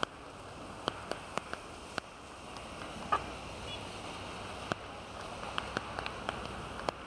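Heavy rain hissing steadily, with irregular sharp taps close by, roughly two a second.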